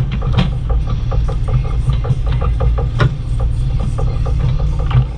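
Bobcat E35i compact excavator's diesel engine running under work, a steady low rumble with an even rapid ticking clatter of about six or seven strokes a second. Two sharper metallic clanks stand out, about half a second in and again about three seconds in.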